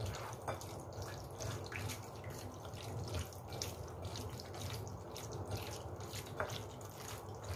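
Raw sliced beef being mixed and squeezed by hand in a glass bowl with oil and soy sauce: irregular wet squelching and smacking sounds, over a steady low hum.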